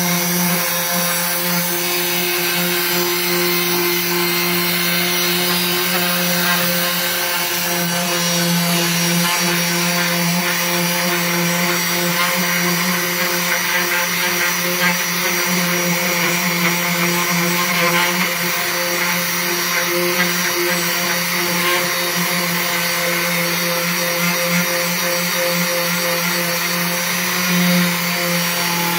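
Electric orbital hand sander running steadily while sanding paint off a wooden board: a constant motor hum with a hiss of sandpaper on the painted wood.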